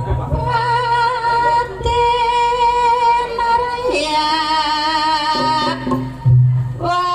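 A female singer holding long, wavering notes in Javanese traditional style through a stage sound system, first one held note, then a lower one about four seconds in, with a deep low instrument note swelling near the end.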